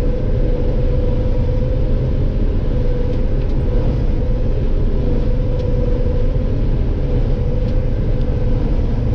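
Combine harvester running steadily while cutting soybeans, heard from inside the cab: a constant low rumble with a steady hum on top.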